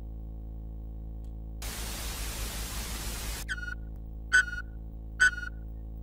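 A steady low electronic hum. About a second and a half in, a burst of static lasts nearly two seconds and cuts off. Short beeping tones then follow, repeating about once a second, and they are the loudest sounds.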